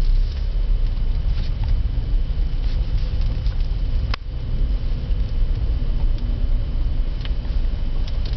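Car driving, heard from inside the cabin: a steady low rumble of engine and road noise, with one sharp click about four seconds in.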